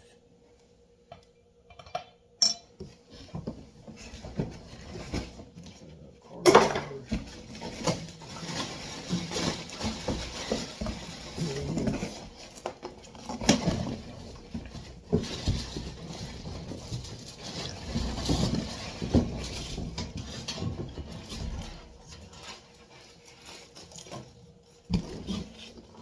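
Microwave parts and packaging being handled during unpacking: irregular clattering, knocking and rustling with clinks like dishware, a few scattered clicks at first, then continuous handling with a couple of sharper knocks.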